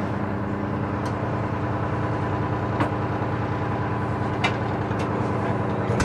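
Boat engine running with a steady, even drone, broken by a few short light clicks.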